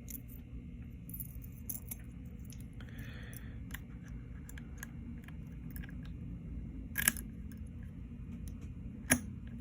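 Keys and Abus 72/40 aluminium padlocks being handled, with small metallic clicks and rattles throughout and two sharper clicks near the end.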